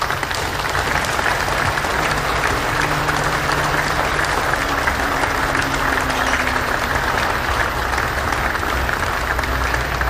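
A crowd applauding, a dense steady clapping that holds at an even level throughout.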